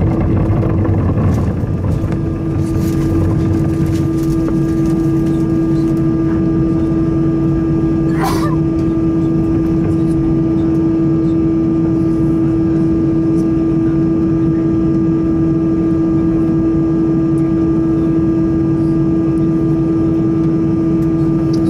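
Steady cabin noise inside an Airbus A320 on the ground with its engines at idle: a constant hum carrying one strong steady tone, with a brief sharp sound about eight seconds in.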